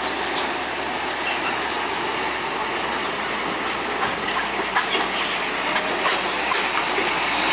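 Hino box truck passing close on a hairpin bend, a steady rushing noise of engine and tyres. Sharp clicks and rattles come more often from about four seconds in, as the truck draws nearest.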